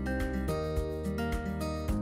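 Background music: an outro tune of held pitched notes over a light beat.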